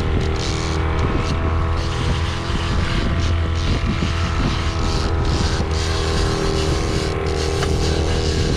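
Fishing boat's engine running steadily while trolling, a low even drone with a rushing wash of water and wind over it.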